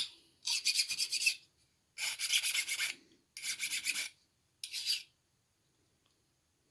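Small metal file rasping on the metal of a folding icon in four short bursts of quick strokes, stopping about five seconds in. This is the break spot being filed down to clean bare metal ready for soldering.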